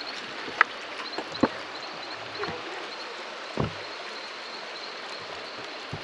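Steady rush of waterfall water, with a few irregular sharp knocks in the first few seconds.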